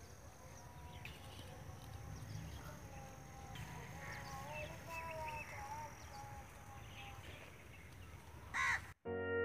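Faint rural ambience with a low rumble and crows cawing, one louder caw near the end. Background music cuts in just before the end.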